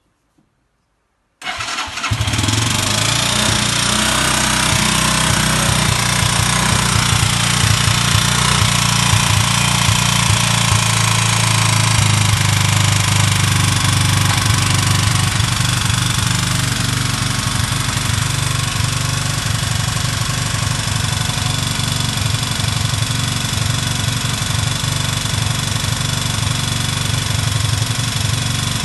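Chinese motorcycle's 162FMJ single-cylinder pushrod engine starting about a second and a half in, then running steadily with a knock inside the engine whose cause the owner does not know.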